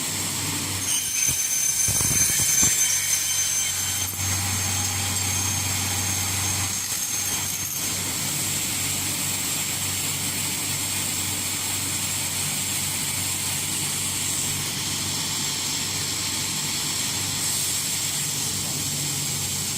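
Double-head aluminium cutting saw running with both heads together, its motors and blades giving a steady high whine. The sound grows louder for a few seconds about one second in, then settles back to an even run.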